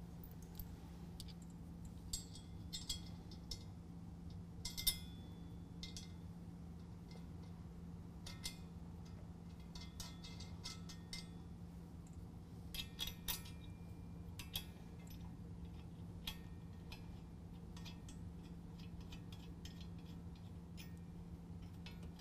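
Scattered light metallic clicks and clinks of steel flat washers and nuts being handled and threaded by hand onto bolts, the loudest about five seconds in, over a steady low hum.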